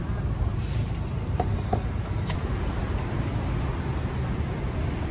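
Steady road-traffic rumble from a busy street, with a few short clinks between about one and a half and two and a half seconds in.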